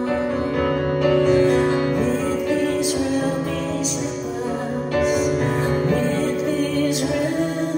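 Live performance of a slow song: grand piano with a woman singing over it.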